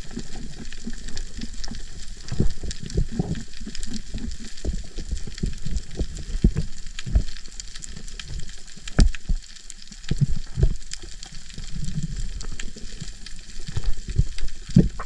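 Underwater ambience recorded through a camera housing on the sea floor: a constant crackle of tiny clicks and pops, with irregular low thumps of water moving against the camera.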